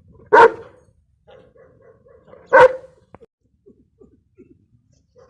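A dog barking twice, single sharp barks about two seconds apart.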